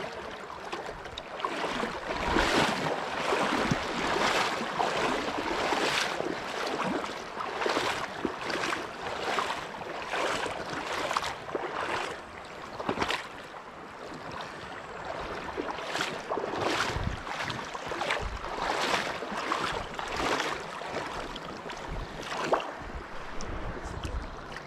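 River water running and splashing over shallow, rippled current, rising and falling in loudness, with occasional wind buffeting the microphone.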